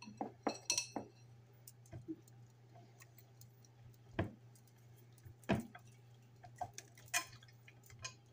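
Scattered light clicks and taps, with a brief glass clink about a second in, as salt and pepper are handled and sprinkled over raw chicken in a glass baking dish. A steady low hum runs underneath.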